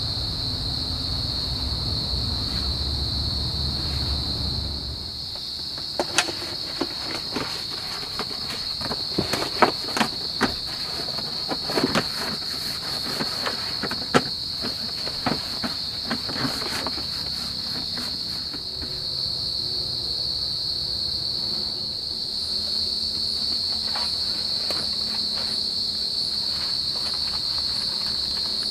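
A steady high-pitched chorus of forest insects, with a low rumble under it for the first few seconds. About six seconds in comes a run of irregular sharp knocks and clicks that lasts roughly ten seconds.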